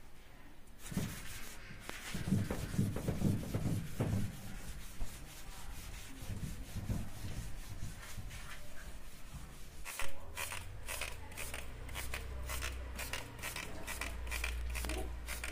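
A hand rubs wet paste over the painted metal bonnet of a Maruti Gypsy, an irregular scrubbing, wiping sound. From about two-thirds of the way in it gives way to a quick series of short, evenly repeated strokes from a trigger spray bottle spraying the underside of the bonnet.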